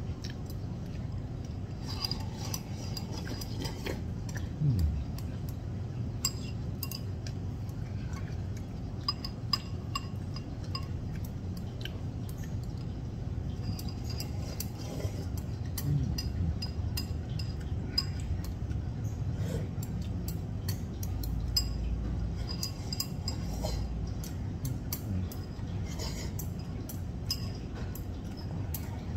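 Chopsticks clicking and scraping against a porcelain rice bowl as food is shovelled from it, in scattered light clinks over a steady low background hum.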